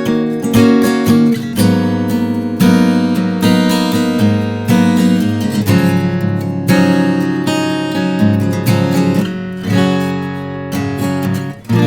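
Strinberg SD201 HCR steel-string acoustic guitar being played, strummed chords mixed with picked notes, with a new attack about once a second ringing on between strokes.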